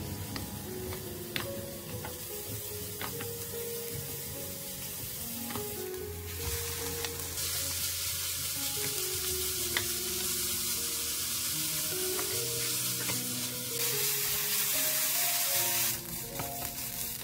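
Garlic and leeks, then ground pork, sizzling as they are stir-fried in oil in a nonstick wok, with wooden spatulas scraping and now and then clicking against the pan. The sizzle gets louder about six seconds in and is loudest near the end, then drops off suddenly. Background music runs underneath.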